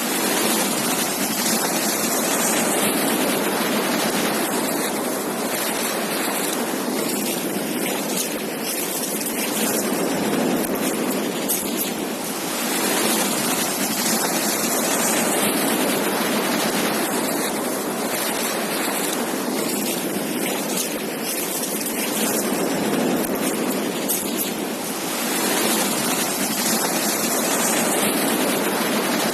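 Surf on a beach: a steady hiss of breaking waves that swells and eases in slow cycles, about every twelve seconds.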